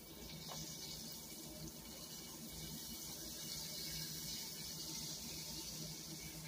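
Flour-coated chicken livers frying in hot olive oil: a steady sizzle, with a faint click about half a second in.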